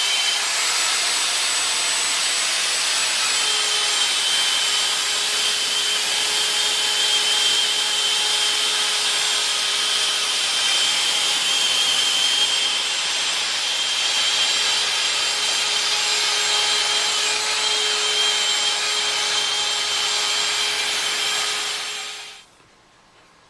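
Homebuilt CNC router's spindle running steadily with a high whine as it cuts. It stops abruptly about a second before the end.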